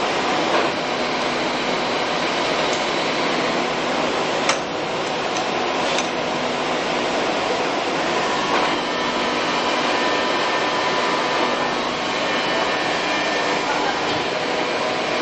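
RF-500C gear-head drill-milling machine, driven by a 4 HP three-phase motor through its gearbox, cutting into steel under load with a steady grinding, churning noise. A couple of sharp clicks come about four and six seconds in, and a faint whine joins a little past halfway.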